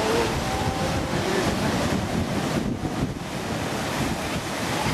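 Surf washing against rocks, with wind buffeting the microphone, as a steady rushing noise. A few faint wavering calls, from the South American sea lion colony, sound in the first second or so.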